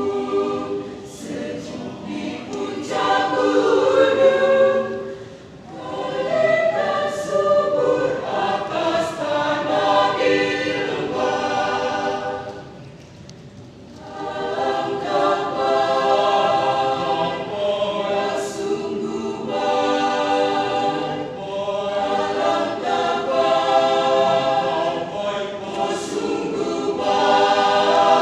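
Church choir singing in parts, in long sustained phrases, with two short breaks between phrases about five and thirteen seconds in.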